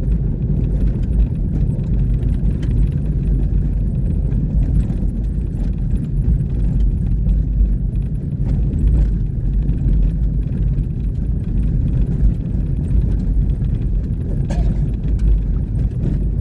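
A vehicle on the move, heard from inside: a steady low road-and-engine rumble with small scattered rattles and clicks.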